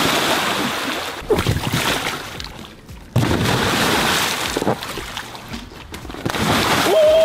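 Water splashing and sloshing as people jump into an inflatable kiddie pool floating in a swimming pool. A splash is already dying away at the start, a fresh big splash comes about three seconds in, and another follows a flip near the end. Each one fades as the water settles.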